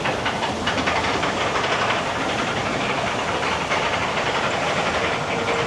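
Amusement-park water ride running: a steady loud rush of water and hiss, with rapid clattering of the ride's machinery.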